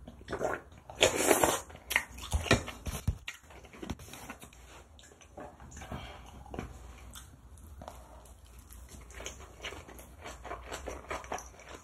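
A person slurping soup broth from a spoon, with a few sharp utensil clicks, then chewing gimbap close to the microphone: many small soft mouth clicks.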